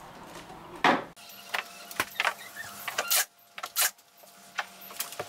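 A scattering of sharp knocks and taps as crown molding is tapped up into place against the wall and ceiling by hand and the plastic support jig is handled. The loudest knocks come about a second in and again around three and four seconds.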